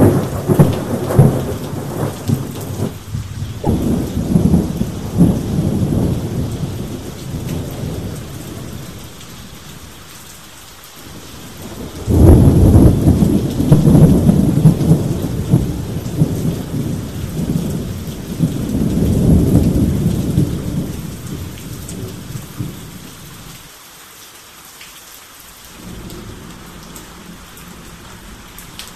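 Thunder over steady rain. A rolling peal fades away over the first several seconds. About twelve seconds in a sudden loud clap breaks and rumbles on for around ten seconds, then dies back to the hiss of rain.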